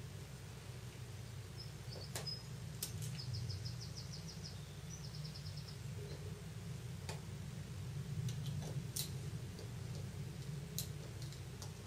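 Faint, scattered clicks of a plastic pry tool popping ribbon-cable connectors off a Samsung Galaxy S1 logic board, over a steady low hum. A few seconds in come short runs of faint, rapid high-pitched chirps.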